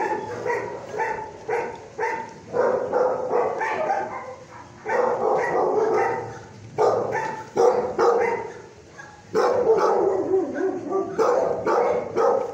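Several dogs barking and yipping in a shelter kennel, barks overlapping in a near-continuous din with a few short lulls.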